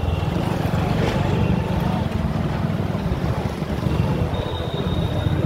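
Motorcycle engine running steadily while riding, a low, rapid pulsing note with wind rushing over the microphone.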